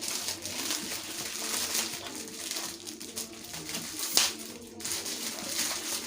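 Plastic packaging crinkling and rustling as it is cut open and pulled off a roll of contact paper, with a sharp snap about four seconds in.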